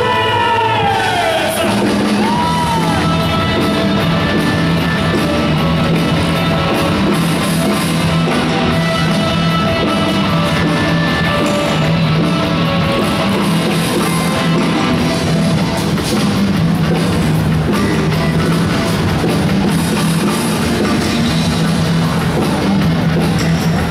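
Loud rock music with drums and guitar, heavy-metal style, played over a large arena sound system. A falling sweep opens it in the first second or two.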